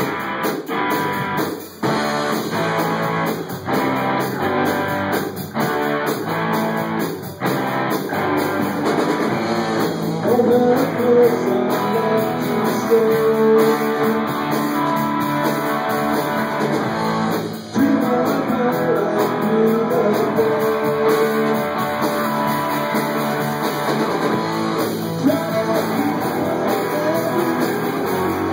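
Rock band playing, guitars to the fore, with strumming under held lead-guitar notes.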